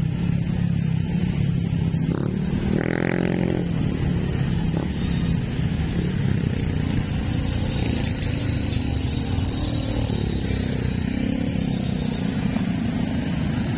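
Motorcycle engine running steadily while riding in city traffic, with road and wind noise and the sound of surrounding motorcycles and tricycles. A brief higher-pitched tone cuts through about three seconds in.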